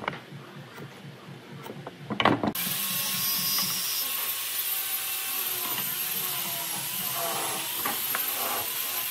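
A few light clicks and taps of a metal speed square and pen against pine boards as lines are marked out. About two and a half seconds in, the sound changes abruptly to a steady hiss of background noise.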